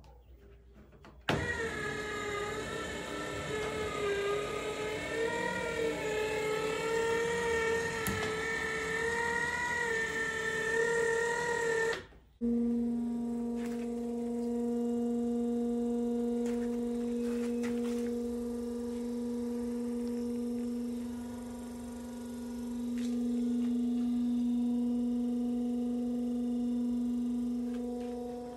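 Small electric motor whining with a wavering pitch for about ten seconds, then stopping. After a brief break an electric trolling motor runs, out of the water, with a steady lower hum that swells and eases.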